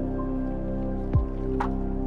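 Logo-intro music: a steady held synth chord with water-drip sound effects, including one sharp drop that falls quickly in pitch about a second in.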